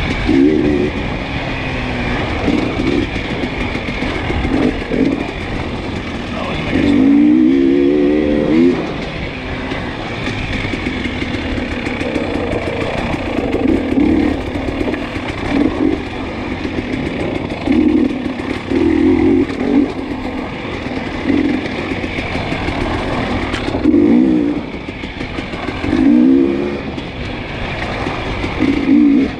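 Dirt bike engine under way, the throttle opened and closed again and again so the revs keep climbing and dropping. The longest rising burst is about 7 seconds in, with shorter ones near the end.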